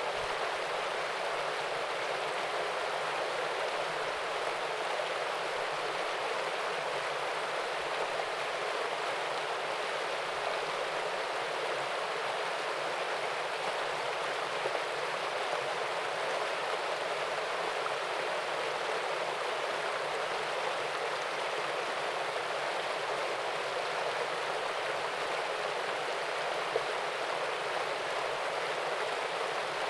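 Small waterfall and stream: water splashing and rushing steadily over rocks, an even, unbroken sound.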